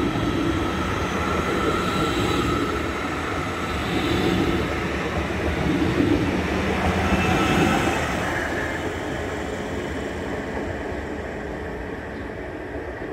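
Siemens Desiro class 460 electric multiple unit running past close by: wheels rumbling on the rails, with steady high tones over the rumble. It is loudest as the last car goes by and fades away after.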